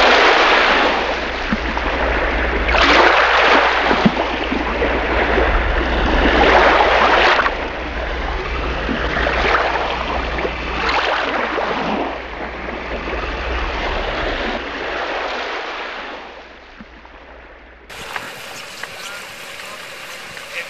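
A loud rushing noise that swells and fades every couple of seconds, like surf, over a steady low hum. About three seconds from the end it cuts to quieter outdoor sound with a few faint clicks.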